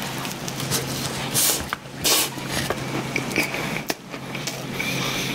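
Close-miked biting and chewing of a flaky cream-filled horn pastry: wet, smacking mouth sounds with small crackles and two louder crunchy bites about a second and a half and two seconds in.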